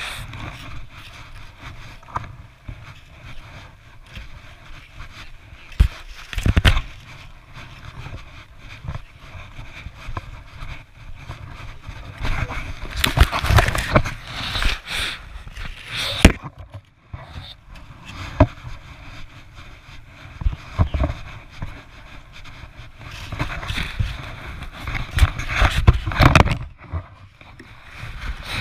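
Irregular scraping and crunching of a child's red plastic snow shovel being handled in snow, mixed with snowsuit fabric rubbing against the body-worn camera, with a few knocks. The handling noise comes in spells, loudest about halfway through and near the end.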